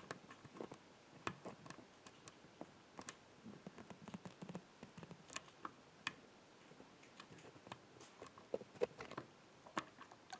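Faint, irregular small clicks and ticks of a dimple pick and tension wrenches working the spool pins inside a Yardeni six-pin dimple lock, a few pins being set while a spool is helped through counter-rotation.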